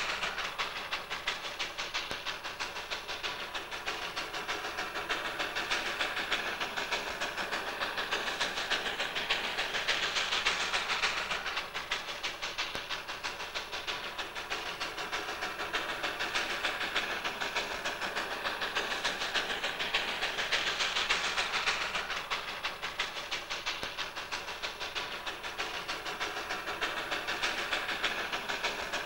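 Steam train running, a rapid, steady beat of exhaust and hiss that swells and fades every few seconds.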